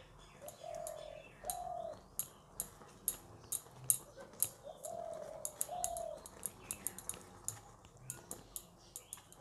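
Metal ladle clicking and scraping against a pan while flour is stirred into thick hot milk, in quick irregular clicks. A dove coos in the background: two short notes, then two more a few seconds later.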